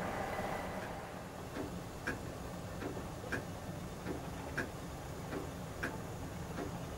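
A regular tick-tock: sharp ticks about every 0.6 s, alternating between a brighter and a duller click, over faint outdoor rumble. The noise of a passing train dies away in the first second.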